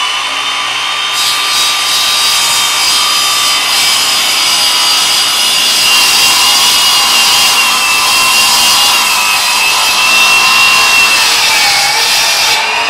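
Milwaukee FUEL cordless sliding miter saw running at full speed with a steady high whine. From about a second in, its blade cuts through a wooden board as it is pushed along the slide, and the pitch sags slightly under load near the end.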